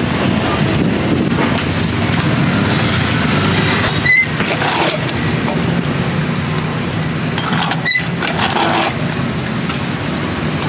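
Steady traffic noise with a low engine hum, broken twice by a sharp metallic clink about four seconds apart.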